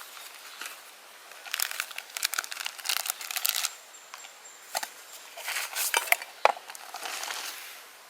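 Crinkly material being handled and crumpled in two spells of rustling, with a few sharp clicks between them.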